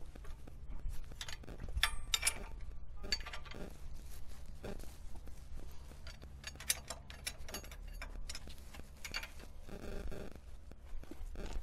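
Wrenches tightening a bolt on the steel mounting bracket of a tractor hoe attachment: irregular metallic clicks and clinks as the bolt is worked down firmly.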